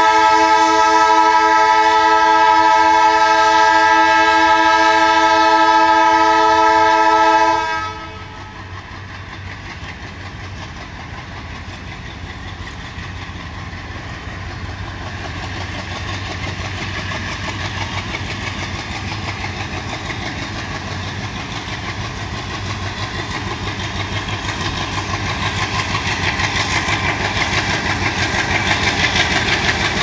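A WDM-2 diesel locomotive's two-tone horn sounds one long, loud blast, which cuts off suddenly about seven and a half seconds in. Then its ALCO diesel engine chugs as the locomotive approaches with its train, growing steadily louder toward the end.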